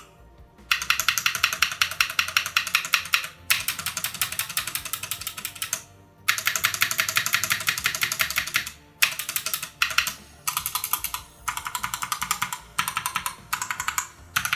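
Cosmic Byte GK18 Firefly mechanical keyboard with Outemu red linear switches being typed on fast, in runs of rapid keystrokes a second or a few seconds long, separated by short pauses.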